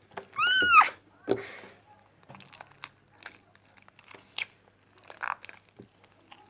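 Homemade borax-and-glue slime being kneaded and stretched in the hands, making small sticky crackling and squishing sounds. A brief high squeak rises and falls about half a second in and is the loudest sound.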